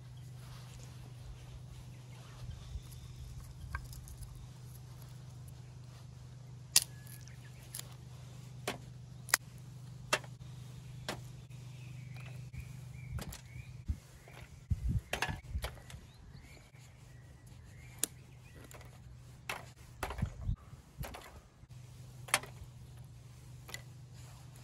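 Dry twigs being snapped and laid into a thin stainless-steel fire pit: a run of sharp, irregular snaps and clicks, with a couple of denser crackling handfuls, over a steady low hum.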